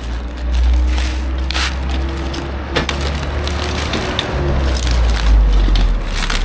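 Cardboard box and packaging being torn open and handled, with repeated crackling and snapping, over a steady low rumble of wind on the microphone.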